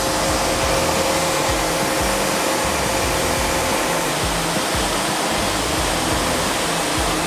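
Wood-Mizer LT40 Wide band sawmill running steadily, its band blade cutting through a monkey pod log, with background music over it.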